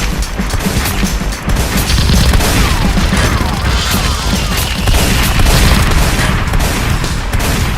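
Loud background music with gunfire and crash sound effects laid over it.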